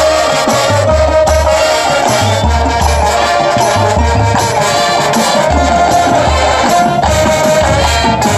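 High school marching band playing its show music: a long held chord from the winds and brass over a repeating low bass line, with hand percussion such as shakers in the mix.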